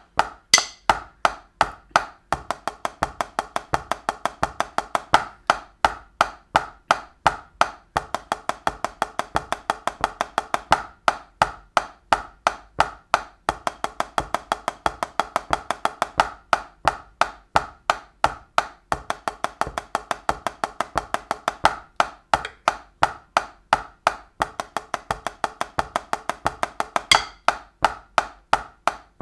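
Drumsticks playing rapid, even alternating single strokes on a pipe band practice surface, the singles exercise in repeating groups of four and eight, with regular slightly louder accented strokes.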